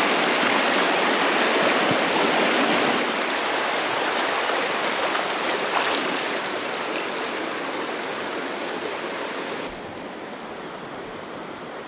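Rushing creek water: a steady hiss that eases slowly, then drops suddenly quieter about ten seconds in.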